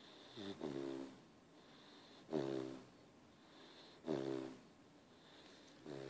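A sleeping puppy snoring: four short, pitched snores, about one every two seconds.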